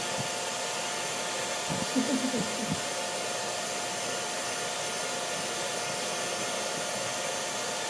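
Handheld hair dryer blowing steadily, its motor holding a constant whine over the rush of air.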